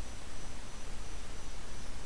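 Steady hiss of background noise with a low hum underneath and a faint high-pitched whine: the recording's room tone.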